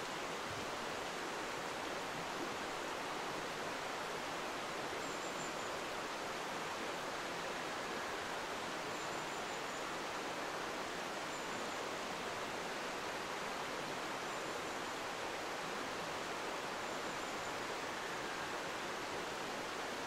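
Steady rush of a mountain stream.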